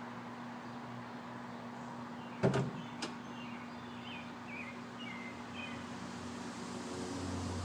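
Two sharp clunks about half a second apart, the first the louder, among birds chirping; a low steady hum comes up near the end.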